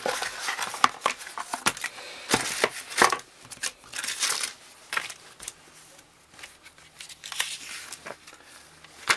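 Paper instruction manual rustling and crinkling as it is handled, in irregular bursts with sharp clicks, busiest in the first half and again about seven to eight seconds in.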